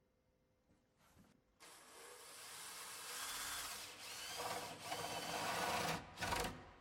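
Power drill boring the spindle hole through a timber door, starting about a second and a half in and running with a slight rising whine, then a short final burst after a brief stop near the end.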